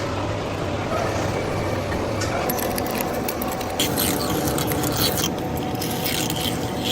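Machine-shop noise: a steady mechanical hum with a faint even tone, joined about two and a half seconds in by scraping and clicking.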